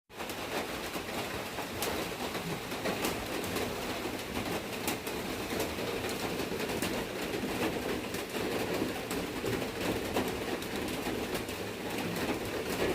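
Doves cooing against a steady background hiss.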